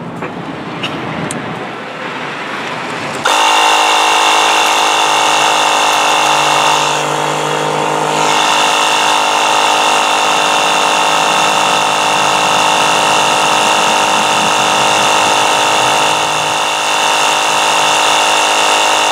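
Small electric tire inflator (air compressor) switching on about three seconds in and running steadily, pumping air back into the newly plugged tire.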